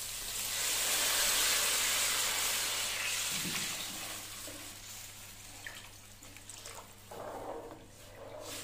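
Water poured into a pot of fried peas and whole spices, a rushing splash that tails off after about four seconds. This is the water for cooking the peas pulao.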